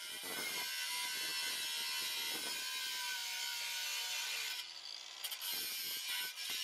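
Angle grinder with an abrasive disc grinding the steel of a rusted exhaust pipe, a steady high hiss and whine, as an old welded-on patch is ground off. The grinding eases briefly a little past the middle, then bites again.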